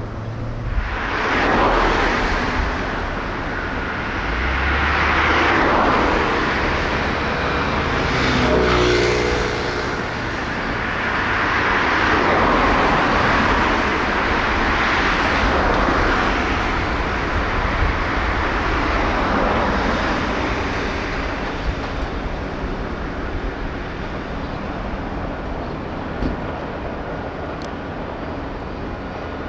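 Road traffic going by, vehicles passing one after another, each a swell of noise that rises and fades over a few seconds, thinning out near the end.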